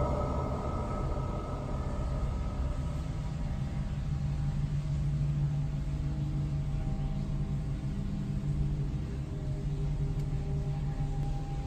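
Background music: a low rumbling drone with long held tones.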